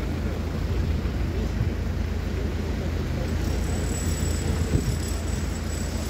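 Wind buffeting the microphone, a steady low rumble under a constant hiss of outdoor noise.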